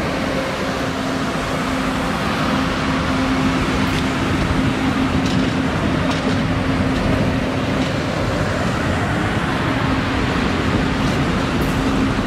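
Amtrak stainless-steel passenger cars rolling past close by: a steady rumble of steel wheels on rail with a steady low hum held throughout and a few faint clicks.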